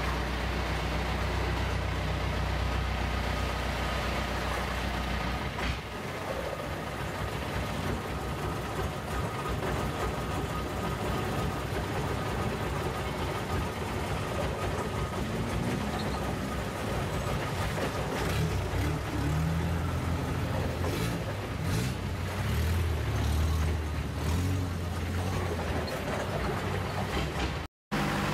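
A wooden canal boat's engine running. It gives a steady low hum for about the first six seconds, then a rougher, uneven running sound whose low tones rise and fall later on. The sound drops out for a moment just before the end.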